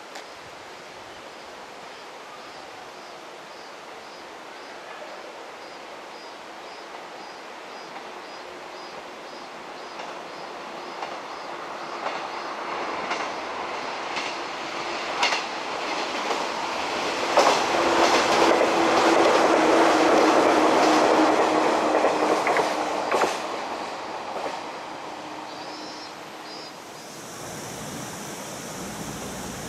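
JR 115 series electric train approaching and passing on a curve: the running noise builds, with clacking of wheels over rail joints and a steady tone, is loudest for several seconds past the middle, then fades away. Near the end it gives way to a steady hiss-like background.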